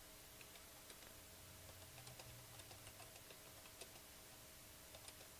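Faint typing on a computer keyboard: soft, irregular key clicks.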